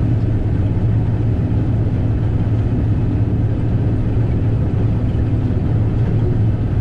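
Combine harvester running steadily while harvesting soybeans: a constant, unchanging low engine drone.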